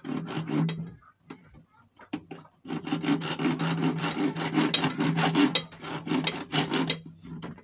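Red-handled hand blade worked back and forth on a plastic PVC pipe, rasping and sawing: a few quick strokes at first, then after a short lull a steady fast run of strokes that stops shortly before the end.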